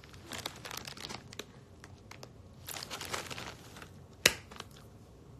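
Plastic candy bag crinkling in irregular spells as it is handled, with one sharp snap a little past four seconds in.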